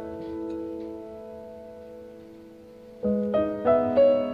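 Piano music: held chords fading away, then a quick run of new chords struck about three seconds in.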